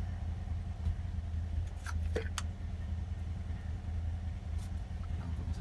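Yamaha 242 jet boat engine idling steadily, with a few light clicks about two seconds in.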